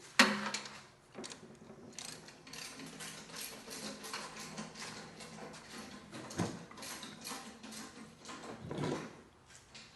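Ratchet wrench clicking in quick runs as a bolt is turned, with a sharp metallic clank just after the start.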